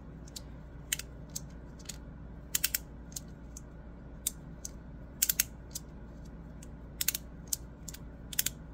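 Double-sided magnetic fidget slider being slid back and forth in the hand, its plates clicking as they snap into place: irregular sharp clicks, some in quick pairs and threes.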